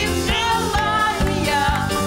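Two women singing a pop duet live, backed by a band with keyboard and electric guitar over a steady beat about twice a second.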